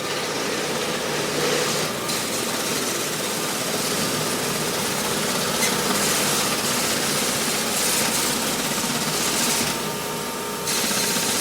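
Office printer running, a steady mechanical hum with a hiss on top that dips briefly about two seconds in and again for about a second near the end.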